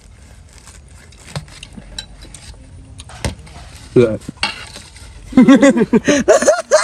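Faint clicks and taps of dishes and eating utensils. From about five seconds in, a loud person's voice takes over, its pitch rising and falling in quick bursts.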